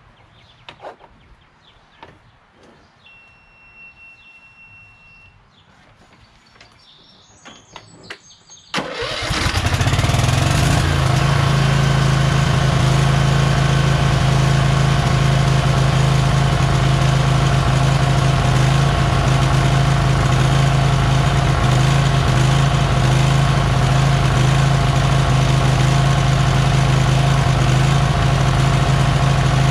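Riding mower's Briggs & Stratton Vanguard engine catching about nine seconds in after a brief crank, helped by a dose of starting fluid, then running steadily and loud. Before it fires there are only a few faint clicks.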